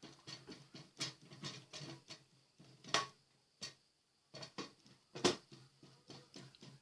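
Irregular clicks and knocks of a screwdriver and hands working on the plastic base of a rice cooker, taking out the screws to open it, with the sharpest knocks about 1, 3 and 5 seconds in over a faint low hum.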